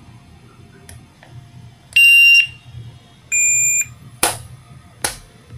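Two electronic shot timers sound their start beeps one after the other, each about half a second long and at a different pitch, about two and three seconds in. Then two airsoft pistol shots crack about a second apart near the end.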